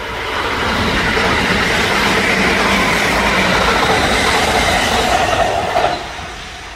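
Kintetsu limited-express electric train passing close by: wheels clattering over the rail joints with the rush of the cars going past, swelling over the first second, staying loud, then falling away about six seconds in as the train's end goes by.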